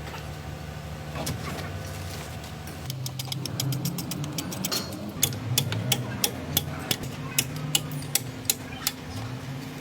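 Lonking 855N wheel loader's diesel engine running, with sharp, regular clicks or knocks about three a second that start a few seconds in as the engine note changes: typical of the abnormal noise from a wheel-end final drive with a damaged inner ring gear.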